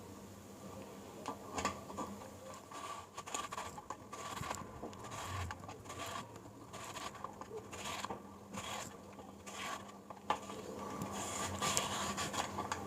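Hand slicer shaving a raw plantain into thick slices: faint repeated scraping strokes, about two a second.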